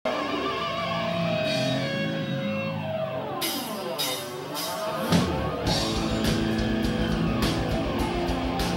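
Live power/progressive metal band playing: held electric guitar notes with a falling pitch sweep, cymbals entering about three seconds in, then the full band kicks in a little past halfway with rapid kick-drum pulses under guitars and cymbals.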